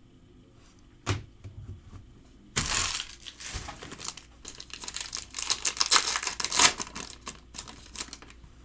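A trading-card pack wrapper being torn open and crinkled by hand: one knock about a second in, then a long stretch of crackling and tearing, loudest a little past the middle.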